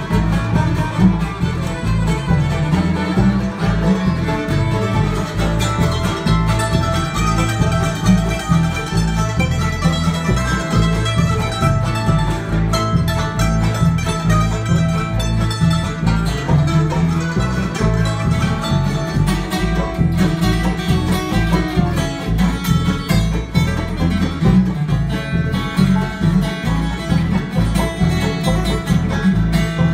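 Live bluegrass band playing an instrumental break: fiddle and banjo take the lead in turn over strummed acoustic guitars and a walking upright bass.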